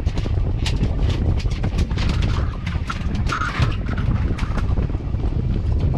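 A boat under way on open water: a steady low rumble with many irregular sharp knocks and slaps.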